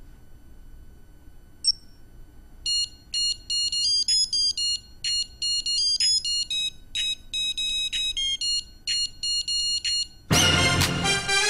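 A digital wristwatch beeps once, then plays a quick electronic beeping tune in a steady rhythm of short high notes for about seven seconds. Near the end, loud electro-funk dance music with a heavy beat starts.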